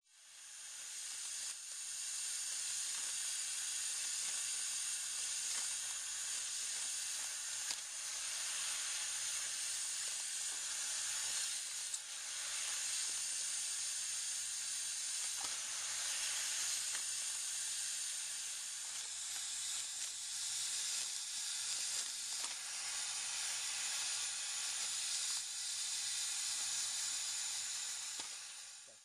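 Steady hiss of air through a pneumatic vacuum suction-cup rig, with its cups holding a foil pouch open, and a few faint clicks from handling along the way.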